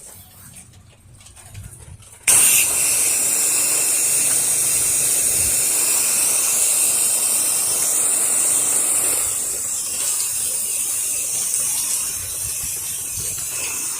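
Pressure washer wand spraying water, a loud steady hiss that starts abruptly about two seconds in and eases a little after about nine and a half seconds.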